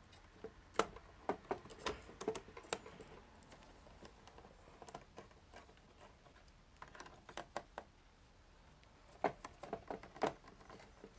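A small screwdriver backing screws out of a plastic RC truck chassis: scattered light clicks and taps of metal on plastic, clustered about a second in, around seven seconds in, and again near the end.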